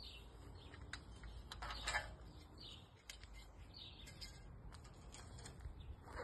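Small birds chirping over and over, with a few light clicks and knocks from lengths of aluminium profile being handled and set down, the loudest about two seconds in.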